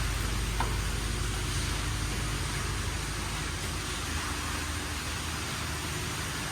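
Steady hissing background noise with a low hum beneath it, with no distinct events.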